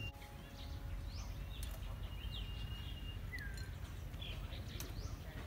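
Outdoor ambience: birds chirping now and then in short rising and falling calls, with a thin steady high tone, over a steady low rumble. A couple of faint clicks.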